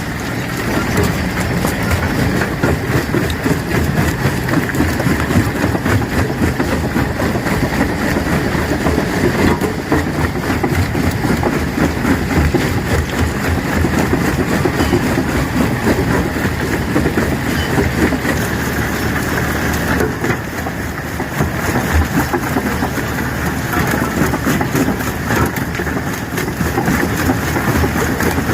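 Rock crusher at work, stones breaking and rattling in a continuous dense clatter over a steady machine drone.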